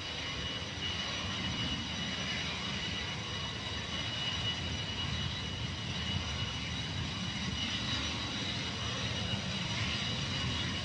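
Jet aircraft engines running steadily: a rushing noise with a high whine of several steady tones above it.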